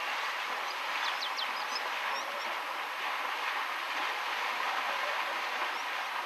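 Steady rush of shallow river water flowing over stones, an even hiss that does not change. A few short, high bird chirps come about a second in.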